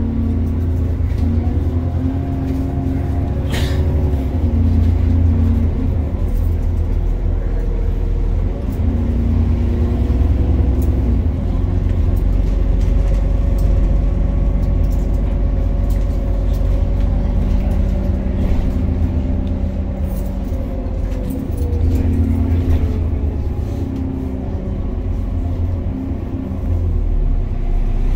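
An Alexander Dennis Enviro400 double-decker bus heard from inside the passenger saloon while driving: a deep, steady engine drone whose pitch steps and glides as the bus changes speed. A sharp knock comes a few seconds in.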